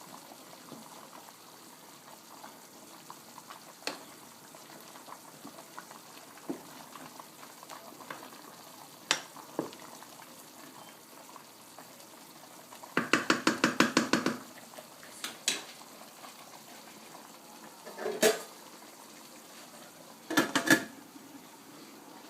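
A pot boiling on the stove, giving a steady low hiss with occasional clicks. About thirteen seconds in, the pot rattles in a quick run of about ten even taps, and two shorter clatters follow near the end.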